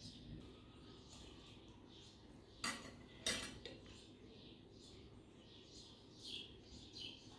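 A metal fork clinking twice against a ceramic plate, about half a second apart, over faint bird chirping in the background.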